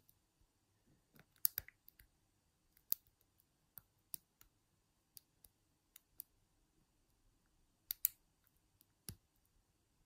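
Lock pick and tension tool working the pin tumblers in the keyway of a 40 mm Yale padlock: faint, irregular clicks and ticks, with small clusters about a second and a half in and again near eight seconds.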